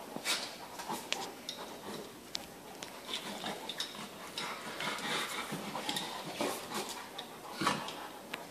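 A Basset Hound and an Italian Spinone play-fighting, mouthing at each other's jaws: irregular small clicks and short noisy bursts, with a louder low sound near the end.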